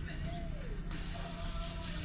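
Air hissing out of a freshly inflated dirt bike tire through its valve, starting about a second in, to bring the pressure down from overfilled. Rock music with singing plays throughout.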